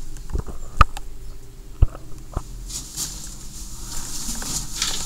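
A few sharp knocks and clicks over a faint steady low hum, with a high hiss of noise coming in about halfway through.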